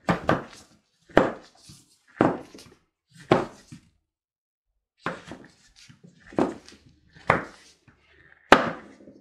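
Chef's knife chopping through a chocolate bar and knocking on a wooden cutting board, one sharp chop about every second, with a short pause about halfway and the loudest chop near the end.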